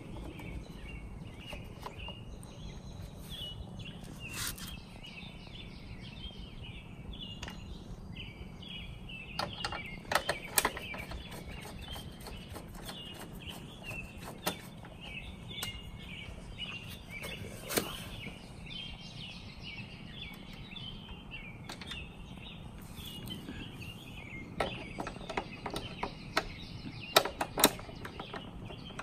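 Birds chirping continuously in the background, with scattered sharp clicks and taps of a screwdriver working screws out of a plastic headlight housing; the clicks come in clusters about a third of the way in and near the end, where they are loudest.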